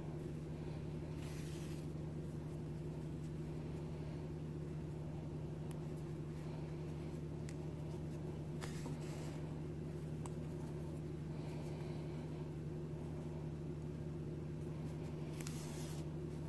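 Steady low hum, with a few faint, brief rustles of yarn being pulled through crocheted fabric with a yarn needle: one about a second and a half in, one near the middle and one near the end.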